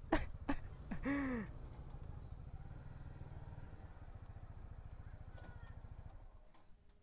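Honda CBR motorcycle engine idling steadily with an even low pulse, then switched off about six seconds in. About a second in, a few sharp clicks and a short tone that rises and falls sound over the idle.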